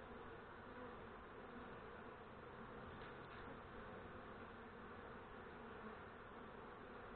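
Faint, steady buzzing of a cluster of honeybees.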